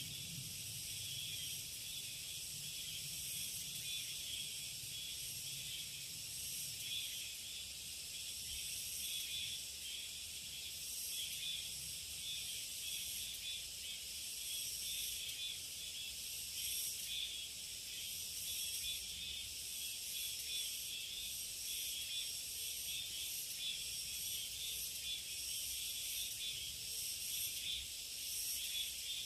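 Steady high-pitched chorus of summer insects in a forest, an unbroken shrill hiss that swells and ebbs slightly.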